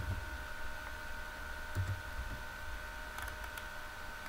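Quiet room tone with a steady faint high whine, and a few faint clicks from a computer mouse.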